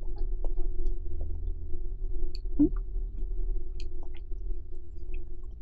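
Electric fan running with a steady low hum, with faint soft mouth clicks from chewing.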